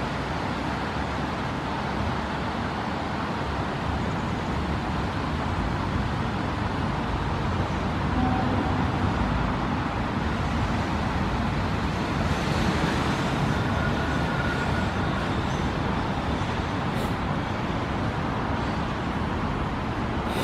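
Steady outdoor city background noise: a continuous rumble and hiss with no distinct events.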